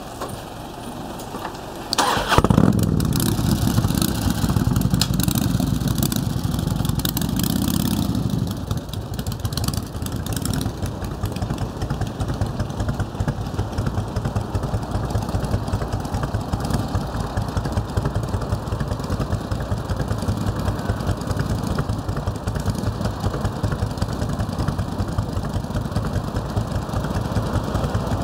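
Harley-Davidson V-twin motorcycle engine starting about two seconds in. It runs loud and fast for several seconds, then settles to a steady idle.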